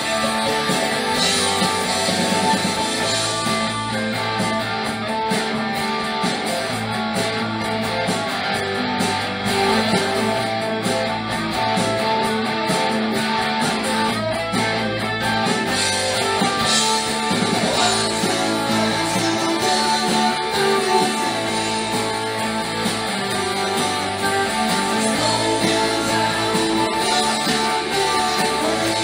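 Rock song with an electric guitar playing over a full band backing, in an instrumental stretch with no singing.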